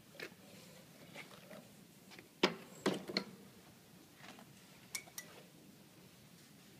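Scattered sharp clicks and knocks from hands handling the metal guides, levers and spindles of a PP string wound filter cartridge winding machine, with a cluster of three loud knocks about halfway through and two lighter clicks a little later.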